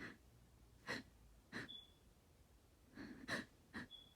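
A woman with a congested head cold taking about five short, quiet, breathy gasps, the loudest about three seconds in: the hitching breaths of a sneeze building.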